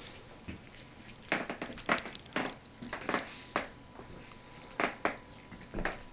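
Hardwood floorboards cracking and creaking as they are stepped on: a dozen or so sharp, irregular snaps in two clusters. This is the creaking floor the homeowner lists as a construction defect.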